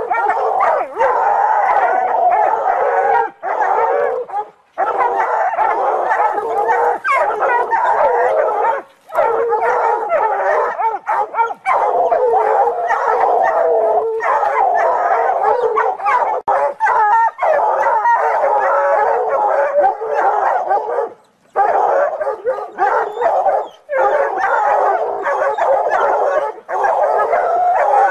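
Hounds baying and howling almost without pause, with a few short breaks, at a cat they have bayed up in a tree.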